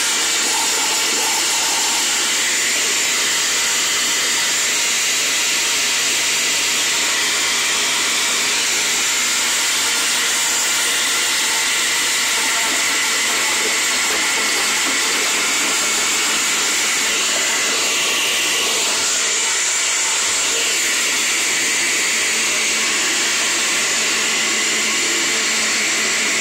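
Oster Wave-Action blender running steadily at full speed, blending a leafy-green smoothie.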